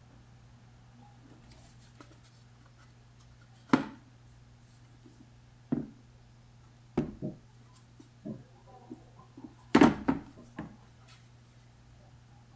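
Handling noises from the accessory box: a series of sharp knocks and clicks, scattered a second or two apart, with a loud cluster of knocks about ten seconds in, as the box is opened and the laser pointers are taken out.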